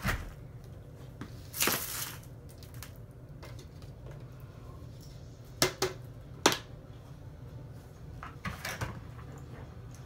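A plastic storage tub being handled and loose debris scooped into it: a short rustling pour of dirt into the tub, then two sharp hard-plastic clacks a second apart, and lighter taps near the end.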